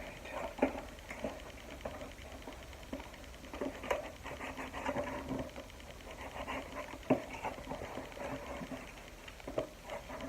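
A knife slitting packing tape and cardboard on a shipping box: irregular scraping and rustling with a fine rapid rasp and a few sharp clicks.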